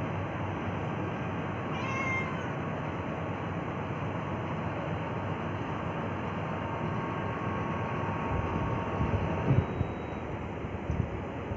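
A domestic cat meows once, briefly, about two seconds in, over a steady hiss of background noise. Low thumps, like wind or handling on the microphone, come in near the end.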